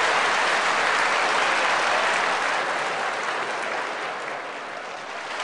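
Audience applauding, the clapping easing off a little near the end.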